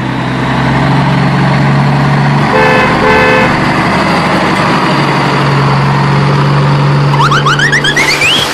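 Car engine sound effect droning steadily, with a car horn beeping twice about two and a half to three and a half seconds in, and a quick series of rising squeals near the end.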